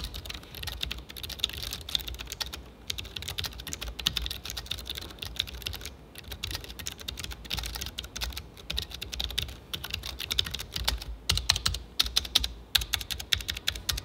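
Fast typing on the Aorus 17 gaming notebook's keyboard, whose Omron B3KL low-profile mechanical switches give a quick, irregular run of key clicks.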